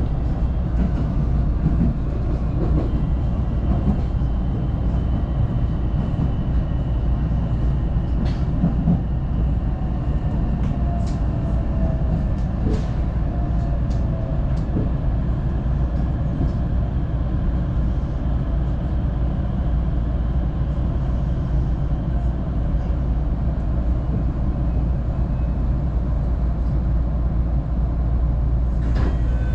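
Inside the carriage of an electric local train running on the rails: a steady low rumble of wheels and running gear, with a few short clicks.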